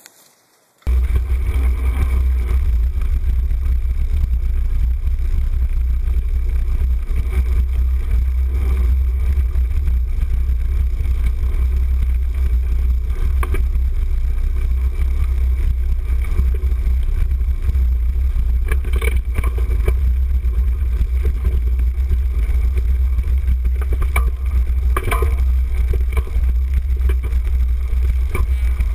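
Loud, steady low rumble of wind and vibration on a handlebar-mounted camera as a cyclocross bike rides over a rough dirt and grass course, starting about a second in, with a few brief knocks from bumps.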